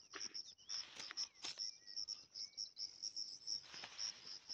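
Faint, steady, rapid high-pitched chirping of insects such as crickets. A few soft rustles and snaps of leaves and twigs come through it as branches are pushed aside.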